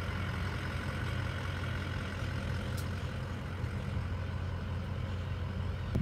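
An engine idling steadily: an even low hum with a light hiss over it.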